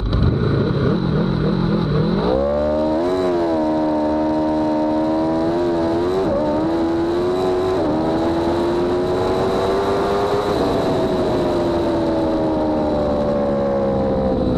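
Aprilia Tuono V4 sportbike engine at full throttle down a sprint: a low rumble off the line, then the revs climb hard through three quick upshifts, each a brief dip in pitch. About ten seconds in the throttle comes off and the engine note falls steadily as the bike slows.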